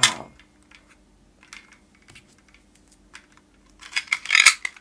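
Light plastic clicks and knocks as a green plastic toy pistol is handled, with a sharp knock right at the start. About four seconds in comes a denser run of clicks and scrapes as a suction-cup dart is pushed into the pistol's barrel.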